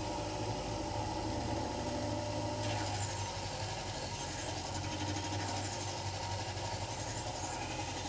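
Ez-Vex scissor sharpening machine's wheel motor running with a steady low hum while a long curved grooming shear is polished against the wheel, the blade worked in and out with a faint rubbing.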